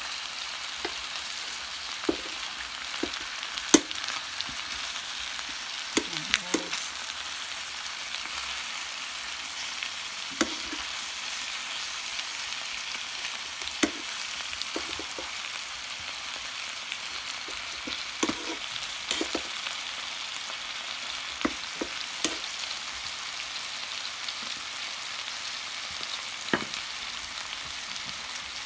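Chicken and pork pieces sizzling steadily as they fry in a stainless steel pan, with a wooden spatula and a metal spoon knocking and clinking against the pan every second or so as the meat is turned.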